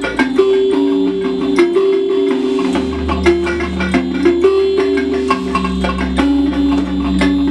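Homemade electric kalimba (thumb piano) being plucked and played through a small speaker and its onboard effects: a run of notes with long held tones stepping between pitches. A low hum joins about three seconds in. The instrument is a little out of tune, with a few notes off the scale.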